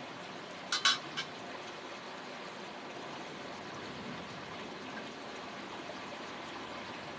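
Metal spoon set down against a soup bowl: three quick clinks about a second in, over a steady rushing background like running water.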